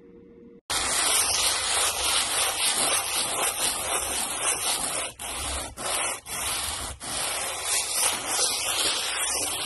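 Hand sanding a cement feather-finish skim coat on a countertop with a sanding block: sandpaper rubbing back and forth over the hardened surface. It starts suddenly about a second in and runs on steadily, with a few brief breaks between strokes near the middle.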